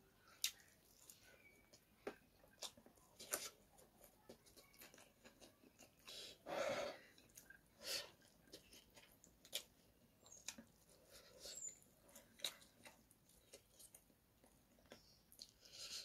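Close-miked eating sounds of a person eating rice and chicken curry by hand: soft chewing, wet mouth clicks and smacks, with a longer, louder mouth sound about six and a half seconds in.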